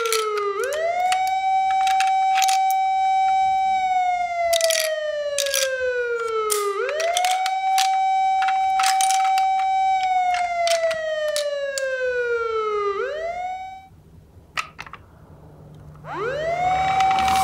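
Toy police van's electronic siren: a buzzy tone that rises quickly, holds, then slowly falls, repeating about every six seconds, with sharp clicks over it. It cuts off about 14 seconds in, and a siren starts up again near the end.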